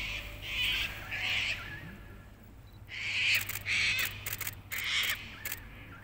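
Birds calling in short, harsh, repeated notes, about seven calls, with a cluster of sharp clicks in the second half. A low steady rumble sits underneath.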